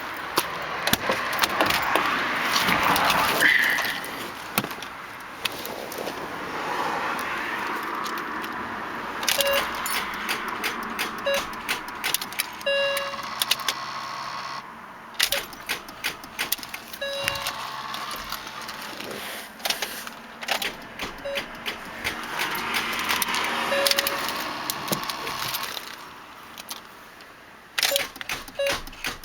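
2003 Mini One's starter cranking weakly through several attempts without the engine catching, with many clicks and short beeps in between: the battery is too weak to turn the engine over properly.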